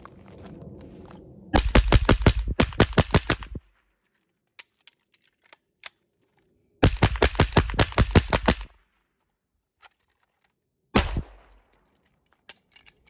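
Two quick strings of rapid semi-automatic gunfire, about a dozen shots each in roughly two seconds, from a suppressed KP9 9mm firing 147-grain subsonic rounds, then a single sharp report near the end.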